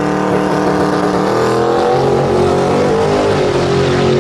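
Drag-racing SUV's engine under hard throttle as it launches and accelerates down the strip, its pitch climbing slowly, with two small drops along the way.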